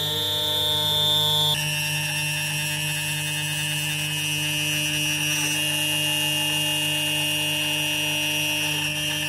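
CNC router spindle whining steadily as a small end mill cuts aluminium plate, with a strong low hum under it. The whine changes pitch abruptly about a second and a half in.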